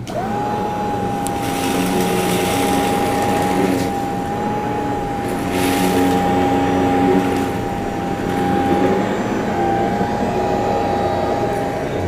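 Upright vacuum cleaner switched on, its motor spinning up in a fraction of a second to a steady high whine and running on. Brief rushing rattles come a few times as it sucks up scattered crumbs from the carpet.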